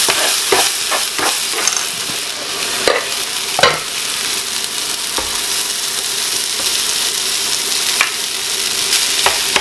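Chopped onion and garlic puree sizzling in hot oil in a nonstick frying pan, with the scrapes and taps of a silicone spatula stirring them. Most of the strokes come in the first four seconds.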